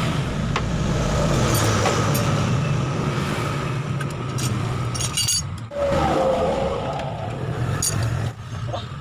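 An engine running with a steady low rumble that dips for a moment about halfway and picks up again, with a few sharp metallic clinks of spanners against the engine.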